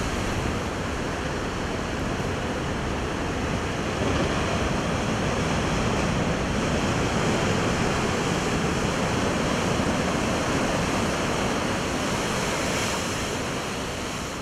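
Heavy ocean surf breaking over shoreline rocks against a seawall: a steady rush of churning white water that swells about four seconds in as a big wave breaks, and eases near the end.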